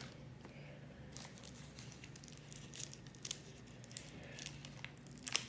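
Thin plastic bag of sauce crinkling and crackling as it is handled and opened, in scattered small crackles with a louder one near the end.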